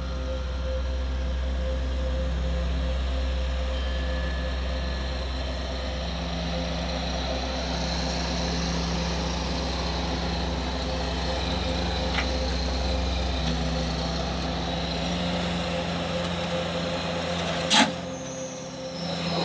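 An engine running steadily, with one sharp click a couple of seconds before the end.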